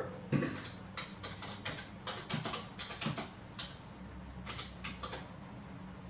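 Typing on a computer keyboard: a quick, irregular run of key clicks that thins out to a few scattered clicks in the last couple of seconds.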